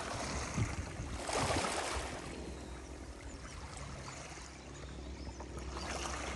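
Sea water splashing and lapping as a golden retriever paddles through shallow water. The splashing is loudest about a second in, then fades to a softer wash as the dog swims farther out.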